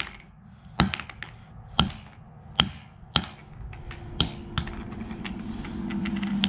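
A claw hammer strikes a small plastic Bluetooth speaker on a concrete floor: about five sharp blows roughly a second apart, with lighter clicks between them. A low steady hum comes in near the end.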